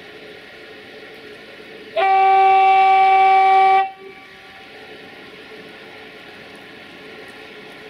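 Electric locomotive's horn sounding one steady single-pitched blast of a little under two seconds, about two seconds in, over a steady background hum.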